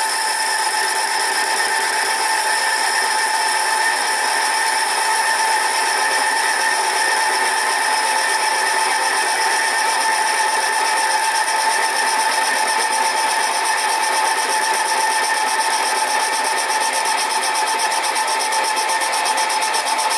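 Sieg SC4 bench lathe running steadily under power feed while a boring bar takes a roughing cut in a cylinder casting: an even whine with a high hiss.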